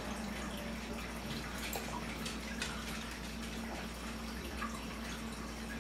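Steady low hum and hiss, with faint scattered clicks and ticks.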